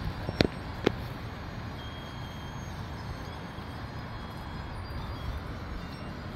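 Strong wind blowing against the microphone: a steady rushing noise with a low rumble. Two sharp clicks come about half a second and about a second in.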